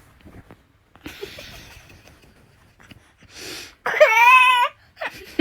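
A young child's short, high-pitched wavering wail, preceded by breathy huffing.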